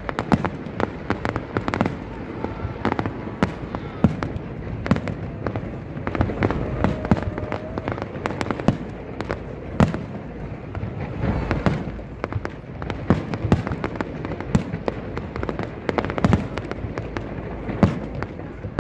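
Aerial fireworks going off in a continuous display: many sharp bangs and crackles, several a second, at irregular intervals over a steady rumble.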